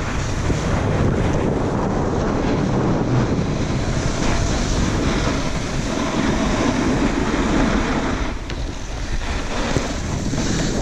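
Wind buffeting the microphone of a camera riding fast down a snow slope, a steady rush mixed with the scraping hiss of sliding over packed snow, easing briefly about eight seconds in.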